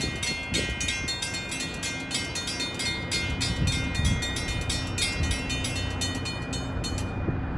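Railroad grade-crossing bell ringing in rapid repeated strikes while the crossing gates lower, cutting off suddenly near the end once the gate arms are level. Under it runs the low rumble of an approaching Norfolk Southern freight train.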